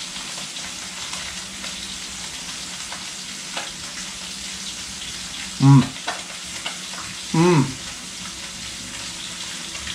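Fish fillets frying in butter in a pan, a steady sizzle. About halfway through, a man's voice twice makes a short hum.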